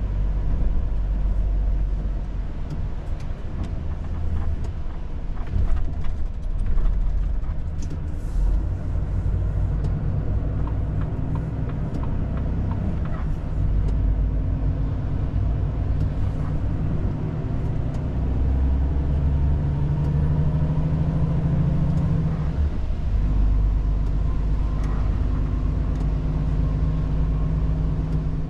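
Cab interior of a Volvo FH4 500 truck under way: the diesel engine running steadily, its note shifting up and down a few times, with scattered light clicks and rattles.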